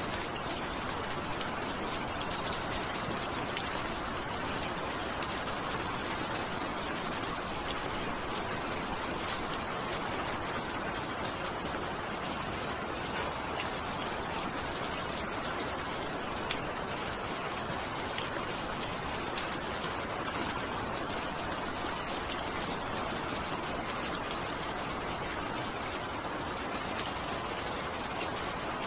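Steady rain falling: an even hiss with scattered sharper ticks of individual drops.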